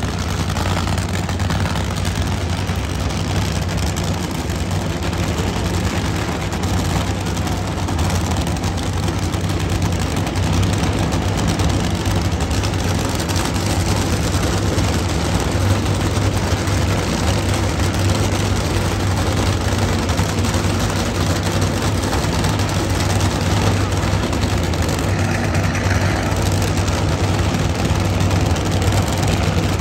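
A steady low engine drone with a constant hum, under a noisy din with faint voices.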